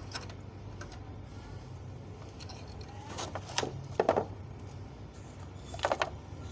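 Small steel parts and hand tools being handled: a few light metallic clinks and knocks in three short clusters, the loudest in the middle, over a steady low hum.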